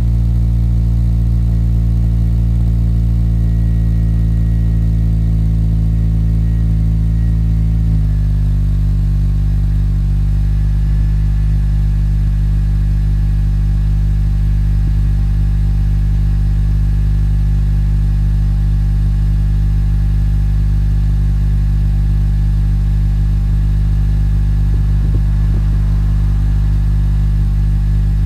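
Honda K20Z3 four-cylinder engine idling, heard at the tailpipe of a Yonaka 2.5-inch catback exhaust: a steady, even idle note. About eight seconds in the idle speed drops slightly and then holds steady.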